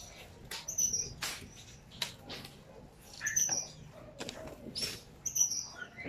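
Caged Gouldian finches and canaries giving short, high chirps, a few at a time, with brief wing flutters as birds flit about inside a wire cage.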